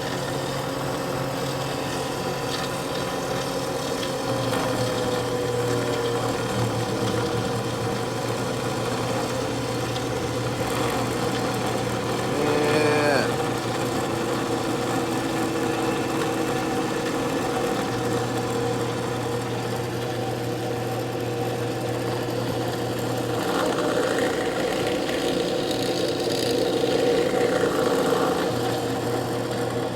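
WEN 12-inch benchtop drill press running unloaded at its top speed, a steady motor hum and spindle whir with no bit in the chuck.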